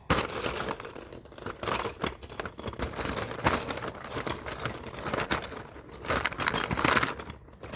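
Hands rummaging through loose Lego pieces, with many small plastic clicks and rattles and some rustling, while searching for a missing part.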